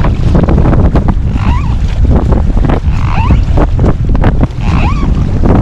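Strong wind buffeting the microphone over choppy sea, with water splashing as a kayak is paddled through it. A short squeak that rises and falls in pitch comes about every second and a half.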